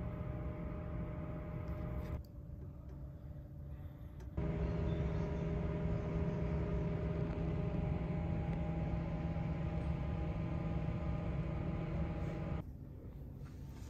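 Steady low droning hum with several held tones over a dense rumble. It drops quieter about two seconds in, comes back louder about two seconds later, and drops again near the end.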